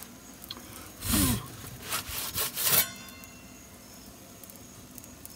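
Pizza peel scraping across the stone floor of a brick pizza oven in short rough strokes, once about a second in and several times between two and three seconds in, as the pizza is worked on the oven deck.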